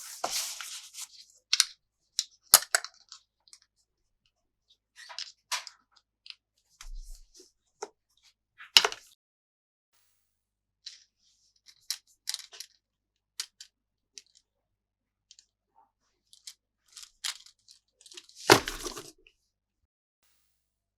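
Toy packaging and plastic playset pieces being handled: scattered clicks and crinkles, with a longer crinkling burst at the start and a louder one about 18 seconds in.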